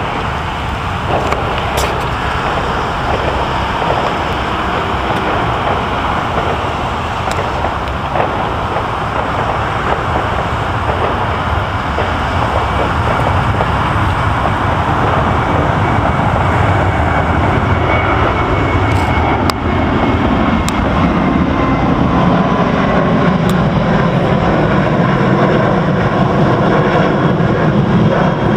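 Boeing 737-800's two CFM56-7B turbofan engines at takeoff thrust: a loud, continuous jet roar that grows louder as the airliner climbs out overhead. In the second half, tones within the roar slowly slide down in pitch as it passes and moves away.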